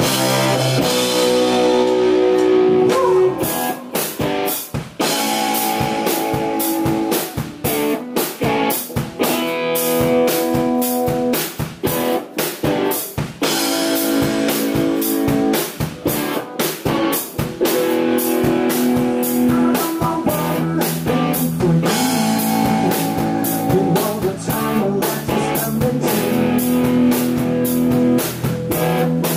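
Rock band playing live: electric guitars sound sustained chords over a driving drum kit with steady snare and cymbal hits, in an instrumental passage without singing.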